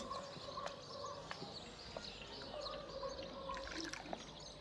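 Faint bird chirping over quiet background ambience, with a few light clicks.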